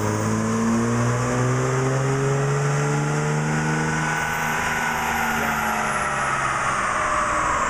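Dodge Ram's turbocharged Cummins diesel engine making a full-load pull on a chassis dyno. The engine climbs steadily in pitch for about four seconds, then winds down as the throttle is let off, and a high turbo whistle rises and falls with it.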